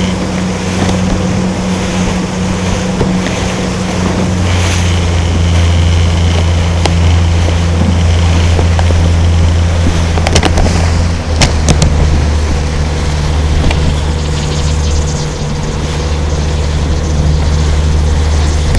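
Small boat's engine running steadily with a low drone that shifts slightly in pitch about eleven seconds in, over a broad rush of water and wind. A few sharp clicks come around the middle.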